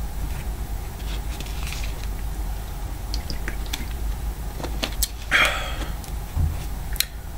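Steady low hum in the room, with a few small clicks about five and seven seconds in. A short sip from a cup about five seconds in.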